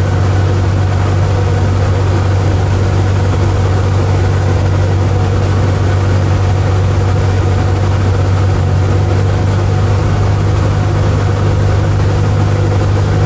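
Light aircraft's piston engine and propeller running steadily, a loud, even low hum with no change in power.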